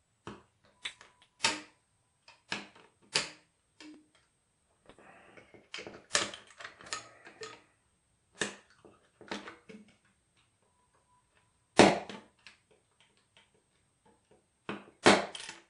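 Hobby knife with a No. 11 X-Acto blade cutting clear hard plastic window parts off their sprue: a series of sharp clicks and snaps as the blade cuts through each gate, with a short scraping stretch about five seconds in. The two loudest snaps come just past the middle and near the end.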